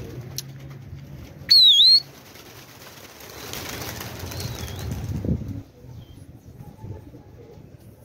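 A flock of domestic pigeons taking off together, a rush of many flapping wings that swells for about two and a half seconds and then fades. About one and a half seconds in, a short, loud whistle dips and then rises in pitch.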